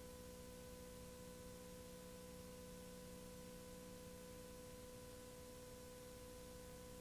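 Near silence: a faint steady hum over hiss.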